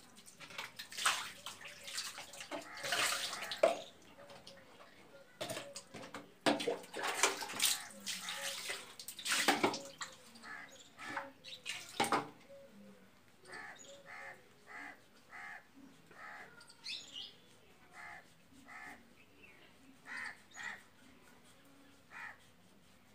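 Water poured from a mug splashing over bare feet onto a tiled floor, in bursts through the first half. Then a bird calls in runs of short repeated calls, about two a second.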